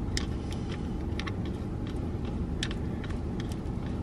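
Irregular plastic clicks from a phone car mount being handled and adjusted in the hands, over a steady low hum.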